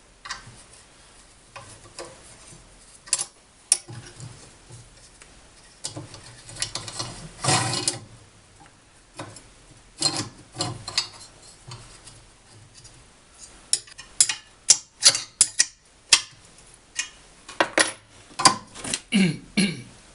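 Small steel parts of a homemade jigsaw-table attachment clinking and knocking as they are handled and fitted: irregular sharp clicks, a short scrape a little before halfway, and a quick run of clinks about three quarters of the way through.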